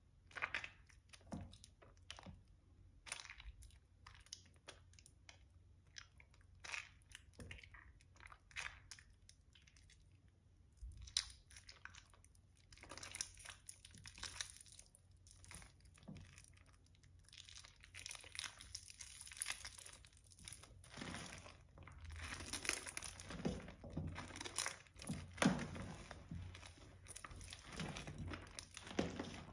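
Hands squeezing and kneading soaked, mushy Palmolive soap bars in a tub of soapy water: wet squishes and crunches. They come scattered at first and thicker and more continuous from about halfway.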